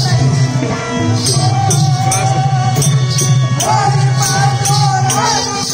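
Live folk-theatre accompaniment music: a steady low drone under a rhythmic metallic jingling beat, with a wavering melody line, a voice or reed instrument, entering about halfway through.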